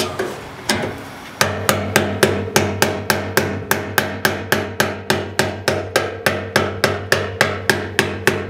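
Hammer tapping a punch against the lock ring of a fuel tank sending unit, driving the ring around to lock the pickup into the steel gas tank. A couple of separate knocks come first, then from about a second and a half in a steady run of three to four strikes a second, with the tank's sheet metal ringing between strikes.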